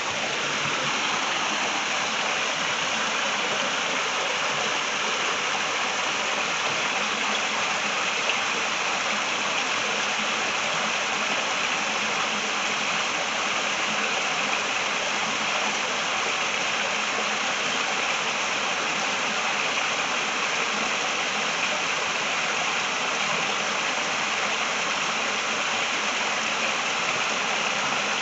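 Steady rushing of creek water over rocks, an even unbroken rush.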